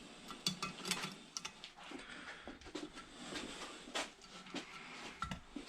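Irregular metal clicks and knocks from hand tools and valve-spring parts being worked on a Honda K20 cylinder head, with the sharpest strikes about half a second, one second and four seconds in.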